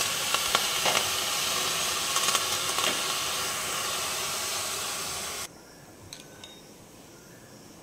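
Chopped green vegetables sizzling as they are stir-fried in a metal wok, with a few knocks of a wooden spatula against the pan. The sizzling cuts off suddenly about five and a half seconds in, leaving only a few faint clicks.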